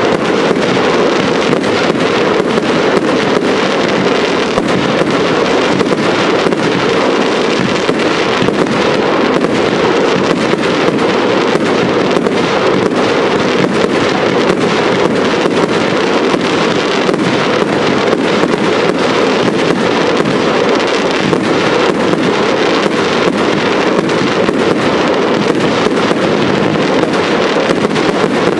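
Professional display fireworks firing in a dense, unbroken barrage: bangs and crackling bursts follow each other so fast that they merge into a continuous roar, with no pause.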